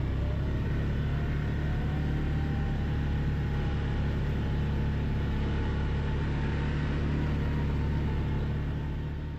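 Quad (ATV) engine running steadily while riding a mountain track, fading out near the end.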